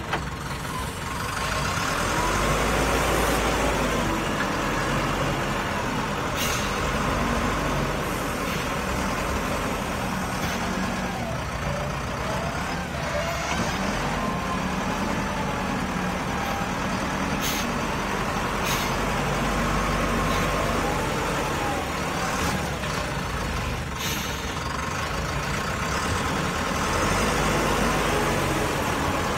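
SZM 932B wheel loader's diesel engine running under load, its pitch rising and falling with the revs, with a few sharp clicks. Near the end, gravel pours from the bucket into a truck bed.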